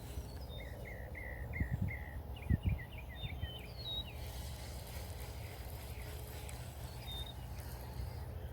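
A songbird singing: a run of short downward-slurred whistled notes, then a quicker series of chirps and a few higher notes, fading out about four seconds in. Under it a steady low outdoor rumble, with a few dull low thumps about two seconds in.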